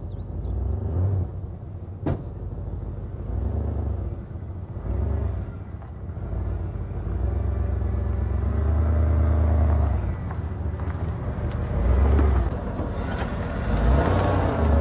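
Ford 351 V8 in a junkyard 90s Ford truck running after being revived from about 15 years of sitting, its low drone swelling and easing several times. A sharp click about two seconds in.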